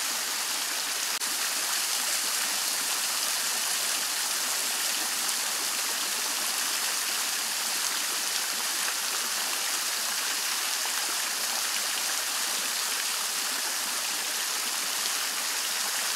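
Henri Studio three-tier Renaissance fountain running: water spilling from its tiers and splashing steadily into the Grando basin.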